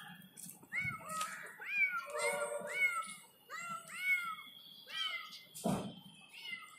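Kittens mewing over and over: short, high-pitched mews that rise and fall, about two a second. A dull thump comes near the end.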